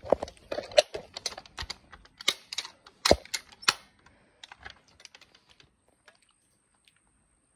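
Irregular plastic clicks and clacks of a Nerf blaster being cocked and handled, the loudest knock about three seconds in. The clicking thins out and stops about two seconds before the end.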